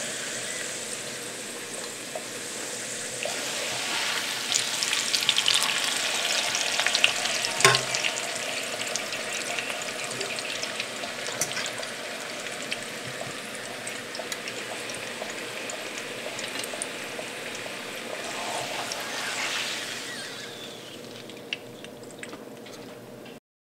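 Tortillas sizzling as they fry in hot vegetable oil in a frying pan, with a few sharp clicks. The sizzle swells a few seconds in and fades near the end.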